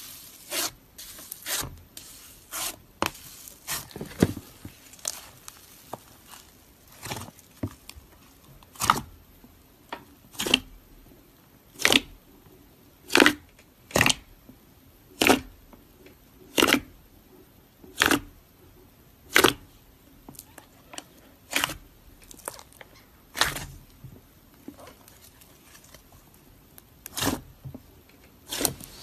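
Fingers pressing and poking thick white slime, which gives sharp crackling pops, mostly about one a second, in a fairly even rhythm through the middle.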